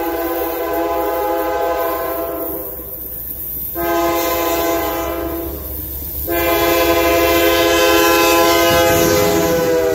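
Diesel freight locomotive's multi-chime air horn sounding for a grade crossing. One long blast ends a couple of seconds in, and two more long blasts follow, the last running on to the end. The locomotive's engine and wheel rumble grow louder near the end as it approaches.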